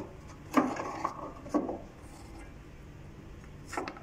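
Sewing-machine leather belt being handled and fed down through the wooden table: a few light knocks and a short scraping rub against the wood.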